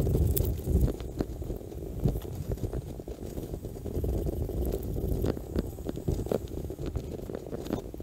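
Curved hand pruning saw cutting a cherry tree branch in uneven strokes, with scattered scrapes and clicks, over a low wind rumble on the microphone.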